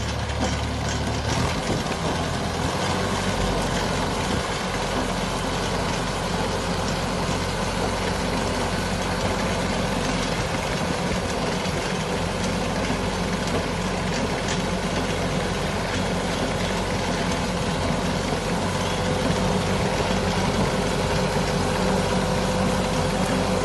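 Engine of a crop reaper running steadily, getting slightly louder in the last few seconds.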